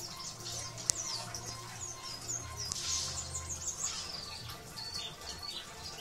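Caged white-eye (pleci) singing a fast run of high, thin chirps and twitters that slide up and down in pitch, over a steady low hum. A sharp click about a second in.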